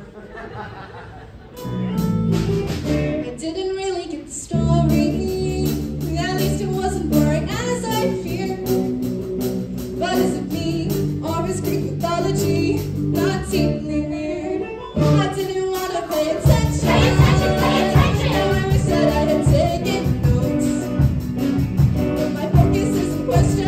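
Live rock band of keyboard, guitars, bass and drums playing a musical-theatre number, with cast singing over it. The band comes in about a second and a half in, and the drums grow heavier about two-thirds of the way through.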